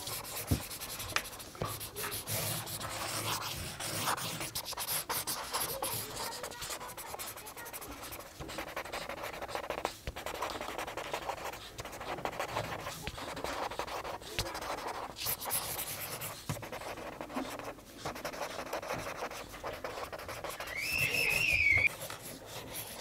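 Chisel tip of an alcohol marker scratching and rubbing across paper in quick back-and-forth strokes as colour blocks are filled in. Near the end, a brief whistle-like tone.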